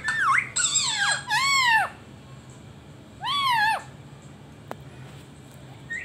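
Indian ringneck parakeet calling: three quick, shrill rising-and-falling squawks in the first two seconds and one more about three seconds in.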